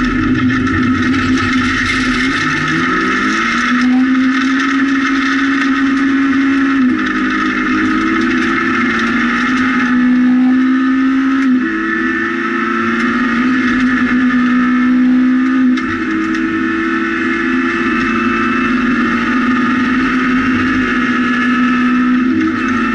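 Rally car engine heard from inside the cabin under hard acceleration: its pitch climbs over the first few seconds, then holds high with small steps up and down a few times, over a steady rush of tyres on gravel.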